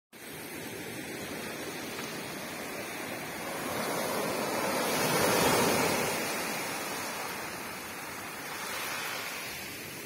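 Small sea waves breaking and washing up over a beach of broken shells. The surge swells to its loudest about halfway through and ebbs, with a smaller swell near the end.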